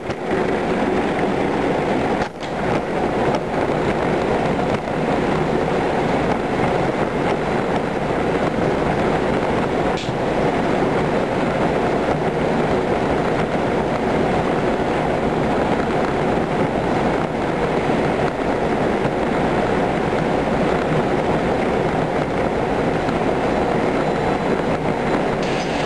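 Bosch motorized pallet conveyor running steadily, heard from on the pallet as a dense, even mechanical rattle and hum. There is a faint brief tick about ten seconds in.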